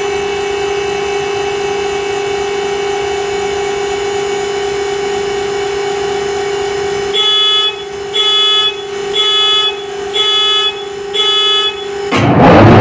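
A steady electric whine in the engine room, then five short warning beeps about a second apart, then near the end the locomotive's V16 diesel (an EMD 16-710 two-stroke) suddenly starts turning over with a loud rush.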